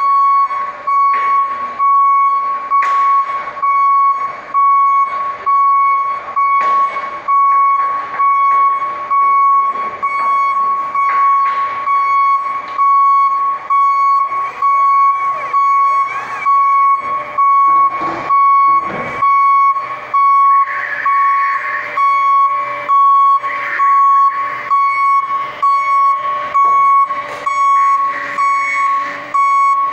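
Raymond forklift's reversing alarm beeping, a loud high tone repeating about once a second while the forklift backs up.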